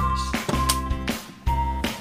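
Background music with a steady beat, a bass line and a melody of held single notes.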